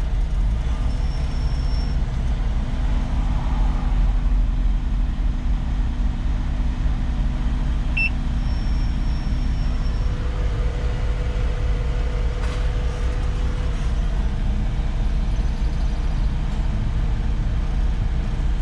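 Concrete mixer truck's diesel engine running steadily with a deep rumble.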